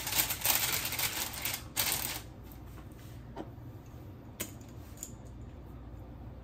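Parchment paper crinkling and rustling as it is pulled and smoothed under a raw chicken on a roasting rack, stopping after about two seconds. After that come a few light clicks as a small glass spice jar is picked up and opened.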